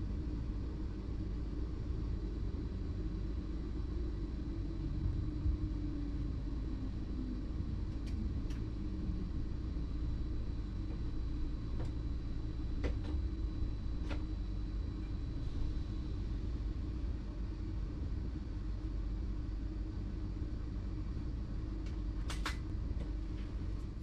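Cab of a BLS RABe 515 'MUTZ' double-deck electric multiple unit: a steady low rumble with a thin, faint high whine, broken by a few sharp clicks about a third of the way in, around the middle and near the end.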